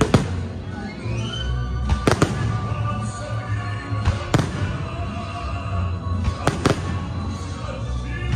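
Aerial firework shells bursting with sharp bangs every couple of seconds, some in quick pairs, over music with sustained tones.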